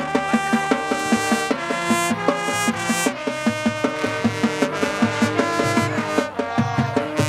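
High school marching band playing: brass chords that change every second or so over a steady drumline beat.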